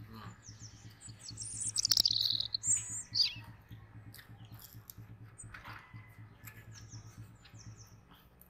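Small birds chirping: a quick run of high chirps and trills about a second in, with fainter chirps later. A low steady hum runs underneath.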